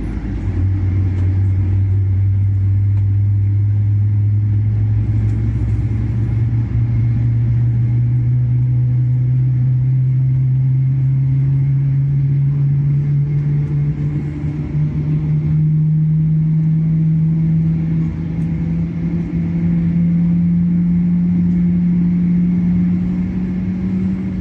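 Boeing 777-300ER on its takeoff roll heard from inside the cabin: its GE90 engines at high thrust under a loud steady rumble, with a low hum rising smoothly and steadily in pitch as the aircraft accelerates down the runway.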